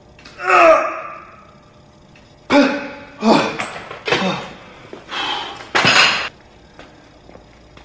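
A man strains and grunts through the last reps of incline dumbbell flys. A drawn-out groan falling in pitch comes first, then a run of sharp, forceful grunts and exhalations. The set ends with a clunk as the dumbbells are put down.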